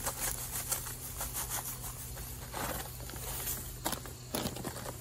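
Granulated sugar poured from its bag onto orange halves in a plastic trash-bag liner, a fine pattering hiss of grains, followed by a few crinkles and rustles of the plastic bag.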